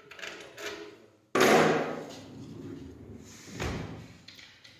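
Wardrobe drawer on metal ball-bearing telescopic slides being worked, banging shut about a second and a half in, followed by a second, duller knock near the end.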